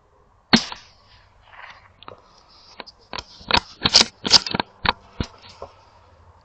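A CZ 455 .22LR bolt-action rifle fires one shot of CCI 40-grain subsonic ammunition, a single sharp crack with a short ringing tail about half a second in. It is followed by a rapid run of about ten sharp clicks and knocks from handling the rifle.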